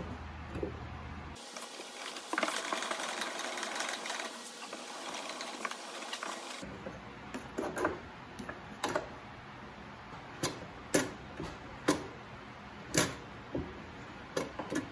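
Sharp clicks and knocks at uneven intervals, about a dozen in the second half, from a hand working the controls of a DeWalt DW735X thickness planer, over a low steady background. Before them comes a few seconds of steady hiss.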